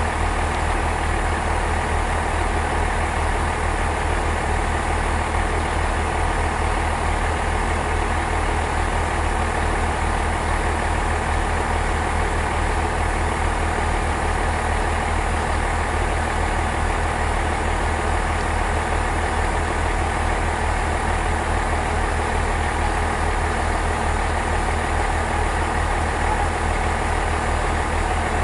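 Diesel railway engine running at idle: a steady, deep, evenly pulsing drone that holds the same level throughout.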